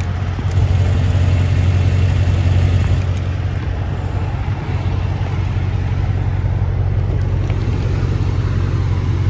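Mercedes-AMG GLE 63 S's twin-turbocharged hybrid V8 idling at a standstill, a steady low hum.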